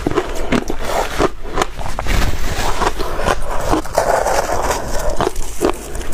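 Ice being chewed and crunched close to the microphones: a dense, irregular run of sharp cracks and crunches.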